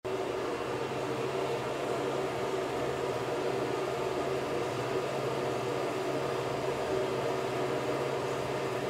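A steady hum with hiss that does not change.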